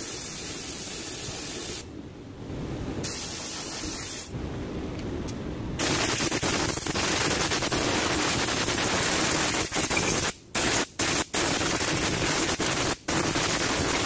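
A spray nozzle hissing in long blasts: moderate at first, louder from about six seconds in, with several short breaks near the end as the trigger is released and pressed again.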